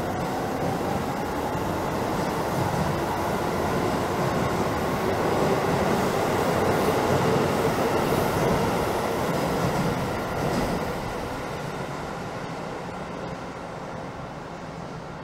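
Keisei electric commuter train pulling out along an underground platform. Its motors whine, rising in pitch as it gathers speed, over the rumble of wheels on rail. The noise grows until the last car passes about ten seconds in, then fades away into the tunnel.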